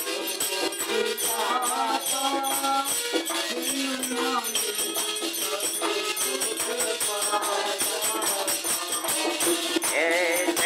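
Harmonium and dholak playing a Hindi devotional song, the dholak keeping a fast steady beat under the harmonium's held chords. A man's voice sings a line in the first few seconds and comes in again near the end.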